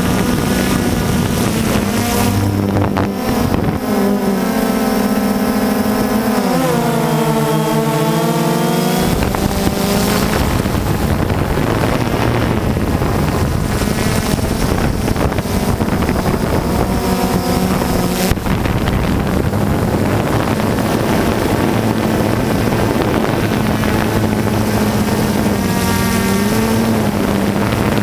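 DJI Phantom II quadcopter's motors and propellers buzzing in flight, the pitch dipping and rising a few times as the drone changes thrust, with wind noise on the microphone.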